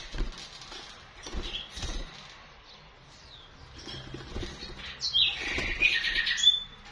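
Common nightingale fluttering around a wire cage, its wingbeats and landings on the bars making soft flaps and thumps. About five seconds in it gives a short burst of high calls, a quick rattling run and a brief whistle, the loudest part.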